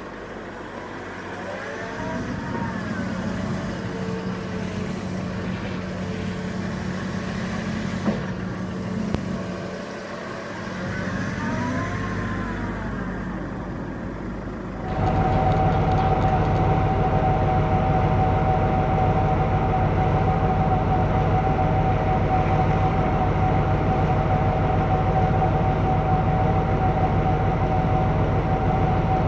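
Heavy construction machinery, excavators at work. First a diesel engine runs with a whine that rises and falls in pitch several times; about halfway through the sound cuts abruptly to a louder, steady engine drone with a steady high whine.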